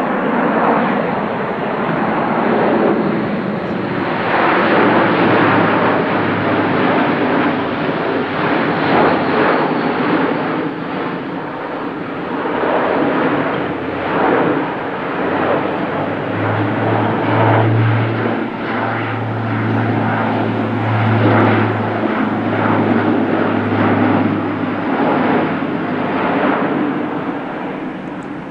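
Airbus A400M's four TP400-D6 turboprop engines and eight-bladed propellers running loudly as the airlifter flies overhead, the sound swelling and fading. A low, steady propeller hum comes up past the middle and fades out a few seconds before the end.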